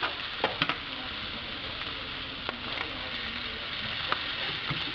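Yellowtail snapper fillets sizzling steadily in hot butter in a nonstick frying pan. A few short clicks of the slotted spatula against the pan come through as the fillets are turned over.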